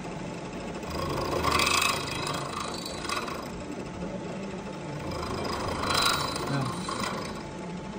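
End mill on a milling machine cutting into a crankshaft counterweight, trimming it to clear the piston. The machine runs steadily, and the cut grows louder and harsher twice, about a second and a half in and again around six seconds.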